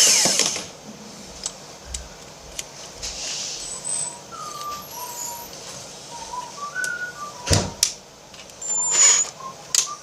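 Electric screwdriver whirring, cutting off about half a second in, followed by small clicks and knocks of parts being handled, with one sharper knock past the middle. A few short high whistled notes come and go throughout.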